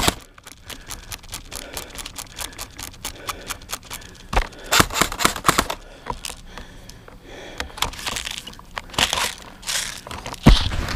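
Rustling and clicking of gear being handled, consistent with an airsoft rifle magazine being pulled from a pouch and swapped, with sharp knocks about four seconds in and near the end.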